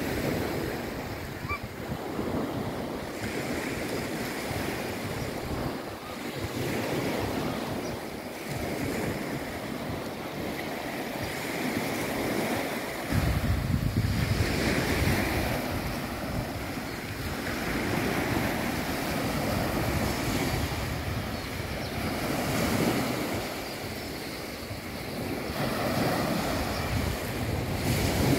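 Small waves washing onto a sandy shore, the surf rising and falling in slow swells, with wind buffeting the microphone as a low rumble that grows heavier about 13 seconds in.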